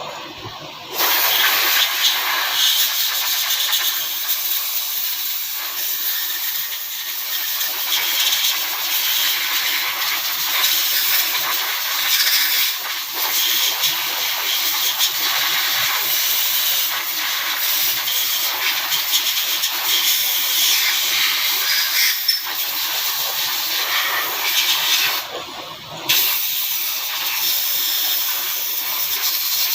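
A steady, loud hiss that starts about a second in and breaks off once for about a second near the end.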